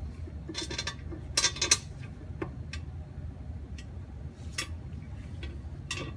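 Light metallic clinks and clicks of pan bolts and tools being handled, in scattered groups. The loudest cluster comes about a second and a half in, over a steady low hum.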